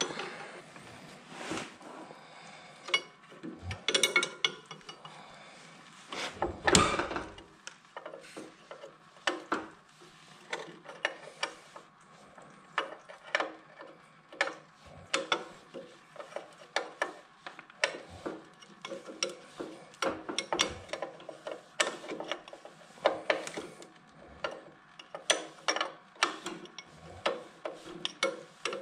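Hand ratchet clicking in short back-and-forth strokes, with metal clicks and taps, as the nut on the control shaft of a Hydro Gear hydraulic drive pump is worked loose. A louder metal clunk comes about seven seconds in.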